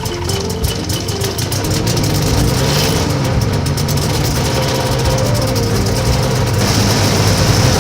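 Rotax 582 two-cylinder two-stroke engine of an ultralight trike running steadily at idle just after starting, with a steady hiss over it that grows a little louder toward the end.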